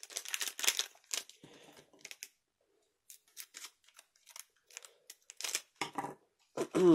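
Weiß Schwarz trading cards being handled and flipped through: a quick run of crisp clicks and rustles in the first two seconds, then scattered light taps.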